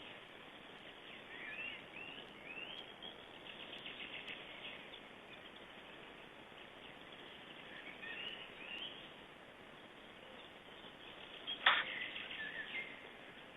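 Small birds calling over a steady background hiss: several short rising chirps and a fast trill. A single sharp knock comes near the end.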